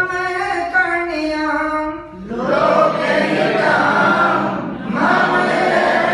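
One voice sings a line alone, then about two seconds in a group of voices joins, singing together in unison: a class singing a Sanskrit song.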